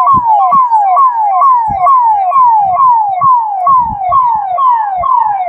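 Motorcade escort vehicle's siren, a fast repeating falling wail, about two sweeps a second.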